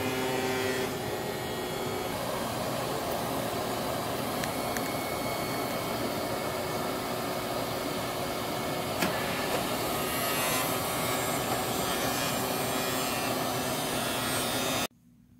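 Sparx automatic skate sharpener running on a steel hockey-skate blade, a steady grinding rush with a few sharp clicks about five and nine seconds in; it cuts off suddenly near the end.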